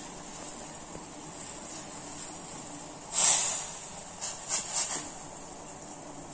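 Tea boiling in a steel saucepan: a steady hiss of bubbling, with a louder hissing surge about three seconds in and a few shorter bursts of it around four to five seconds.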